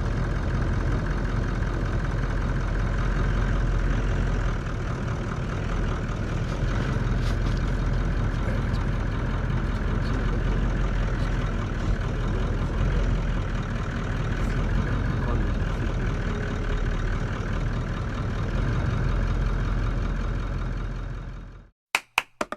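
A vehicle engine idling steadily, then cutting off abruptly near the end.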